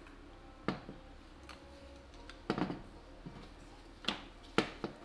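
Scattered sharp metal clicks and taps, about five in all, from a pick tool working against a BMW single VANOS unit as its sealed piston is pried out of the housing.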